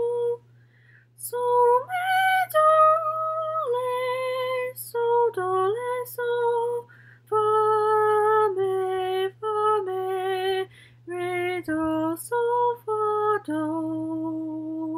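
A woman singing solfège syllables unaccompanied: a string of held notes stepping up and down with short breaks, ending on a longer, lower note.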